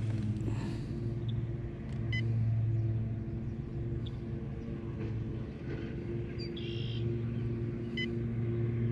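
A boat motor running steadily with a low hum that swells slightly about two seconds in. Two short high chirps sound, one about two seconds in and one near the end.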